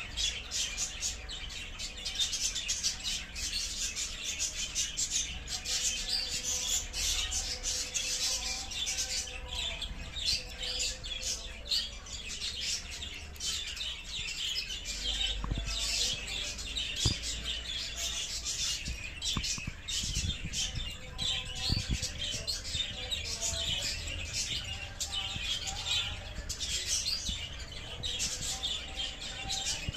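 Turquoise parrots (Neophema pulchella) chirping: a continuous run of short, high chirps, with a few soft knocks about halfway through.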